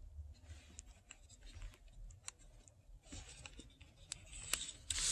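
A plastic BMW key fob being handled and turned over in the fingers: scattered light clicks and soft rubbing of skin on the case, busier toward the end.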